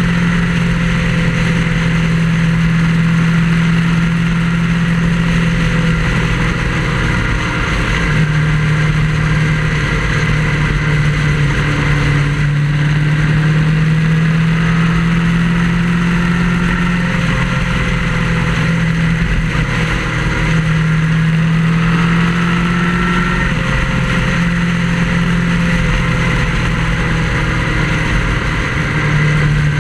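Vehicle engine droning steadily at highway cruising speed, its pitch shifting slightly now and then, under steady wind and road noise as heard from on board the moving vehicle.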